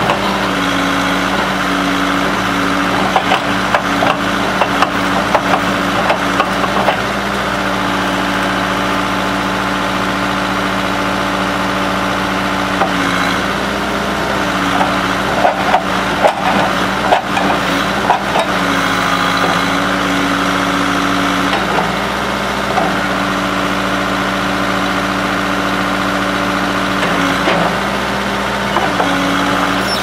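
Case 580C backhoe running steadily while its backhoe arm digs and pries at a tree stump. The engine note changes several times as the hydraulics work. Roots and wood crack and snap a few seconds in and again around the middle.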